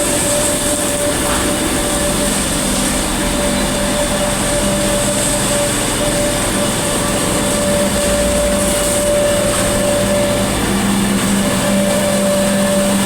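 Steady machine noise: a constant hum with a hiss, unchanging in level throughout.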